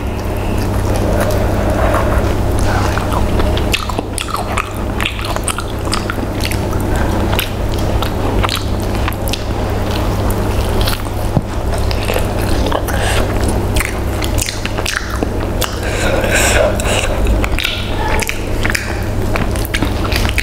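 Close-miked eating of a whole fried chicken by hand: fingers tearing the meat and bones, biting and chewing, with many small wet clicks and smacks. A steady low hum runs underneath.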